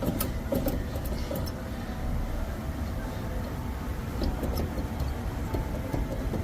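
Steady low mechanical rumble, like a vehicle or machine running, with a few faint light ticks.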